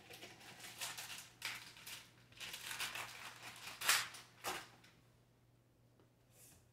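Packaging rustling and crinkling as things are handled and pulled out of a cardboard shipping box, in a run of short bursts, the loudest about four seconds in, ending about five seconds in.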